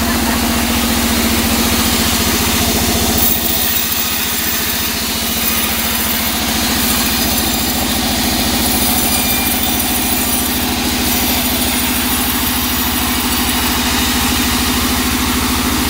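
Vertical band sawmill running steadily with its blade spinning free, not yet cutting into the log: an even machine hum with a low, regular pulse.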